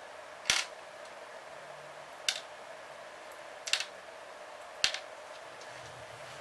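Four sharp clicks of small metal engine parts and hand tools knocking on a workbench during engine disassembly, a second or so apart, the third one doubled.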